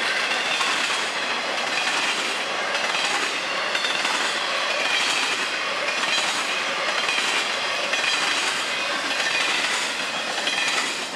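A freight train's empty intermodal flatcars rolling past on steel wheels, a regular clack over the rail joints about once a second with a thin squeal from the wheels. The sound falls off at the very end as the last car clears.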